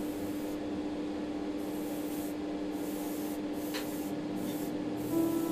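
Airbrush hissing as it sprays thinned primer onto a plastic model ship, under soft background music holding one steady note.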